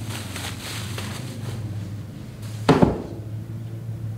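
Plastic bubble wrap crinkling as the wrapped hedge trimmer attachment is lifted and handled, then a single heavy thump a little past halfway. A steady low hum runs underneath.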